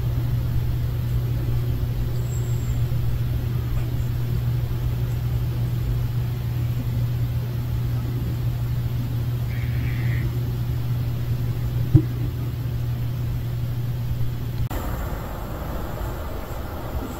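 Steady low engine rumble, like an idling vehicle, with one sharp click about 12 seconds in. The rumble cuts off abruptly about 15 seconds in.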